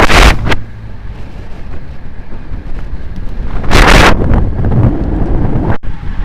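Wind buffeting the microphone of a road bike descending at speed, a loud low rumble with two sharper gusts, one at the start and one about four seconds in.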